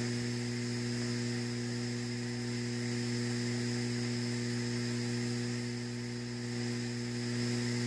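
Steady electrical mains hum with an even background hiss, holding level throughout.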